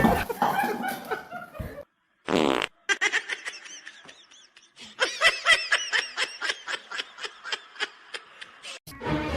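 A short buzzy fart-like noise, then high-pitched laughter in a quick run of short bursts, about four or five a second.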